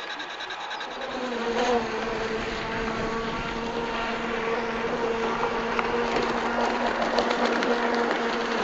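Radio-controlled model RAF crash tender running fast across the water. Its motor gives a steady buzzing drone that comes in about a second in.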